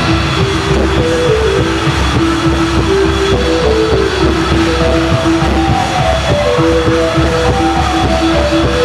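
Loud dance music: a dense drum beat under a simple melody of short held notes that step up and down.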